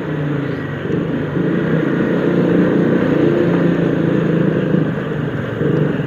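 Motorcycle engine running as the bike rides along at low speed, a steady hum that grows a little louder about a second and a half in.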